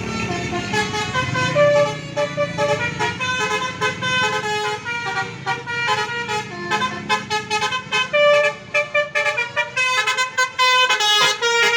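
Bus 'telolet' multi-tone air horn playing a fast melody of short notes over the low rumble of the bus engine.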